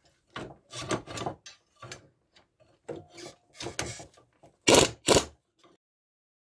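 Metal hooks and threaded rod of a coil spring compressor scraping and knocking against a car's coil spring as it is positioned by hand. A string of irregular rubs and clunks, the two loudest close together near the end, after which the sound cuts off suddenly.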